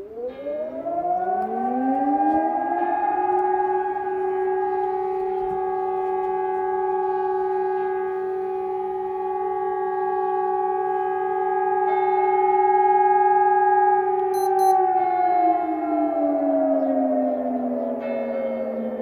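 Air raid siren winding up over the first couple of seconds to a steady two-toned wail, holding it, then winding down in falling pitch over the last few seconds.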